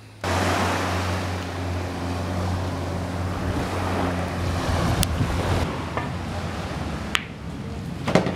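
Surf and wind rushing on the microphone, with a steady low hum underneath and three sharp clicks in the second half.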